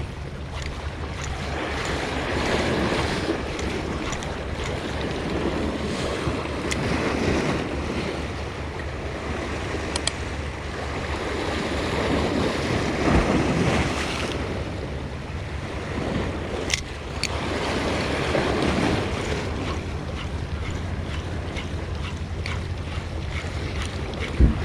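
Sea waves surging and washing against a rocky shore, the wash swelling and falling back every few seconds, with wind rumbling on the microphone.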